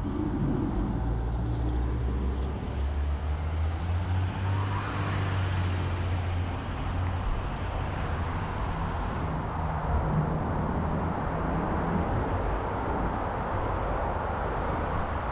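City street traffic: motor vehicle engines running with a steady hum and road noise. A thin, high whine rises about four seconds in, holds, and cuts off suddenly after about five seconds.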